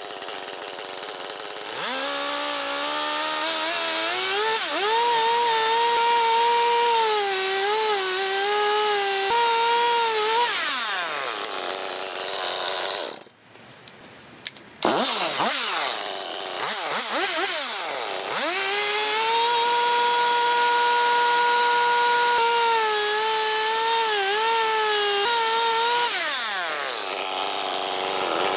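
Chainsaw cutting across an old wooden beam: the motor runs up to speed, its pitch sagging and wavering as the chain bites into the wood, then winds down. This happens twice, with a short gap near the middle.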